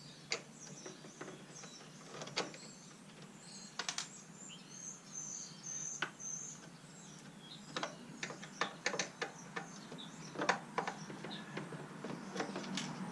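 Scattered clicks and light knocks of hands working on an elliptical machine's plastic control panel and circuit board, coming more often in the second half. A few short high chirps sound briefly about halfway through.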